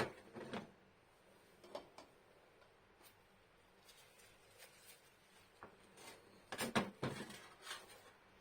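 Scattered light knocks and clicks of objects being handled, a few near the start and a closer cluster about six and a half to eight seconds in.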